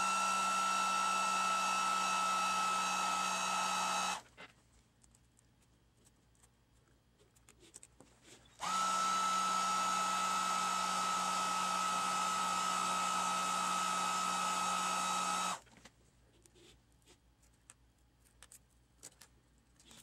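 Master Appliance EcoHeat heat gun running with a steady high whine and blower rush for about four seconds, switched off, then run again for about seven seconds, heating the adhesive that holds the touchscreen digitizer glass to its bezel. Faint clicks fall in the quiet gaps, and the footage plays back sped up.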